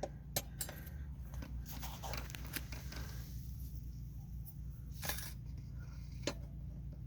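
Scattered light clicks and scrapes of an irrigation valve key being worked around a buried water shutoff valve, feeling for the valve, over a steady low hum.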